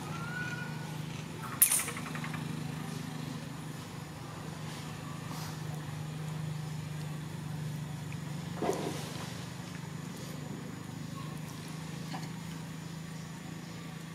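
A steady low motor hum, with two short sharp clicks: a loud one just under two seconds in and a fainter one a little past halfway.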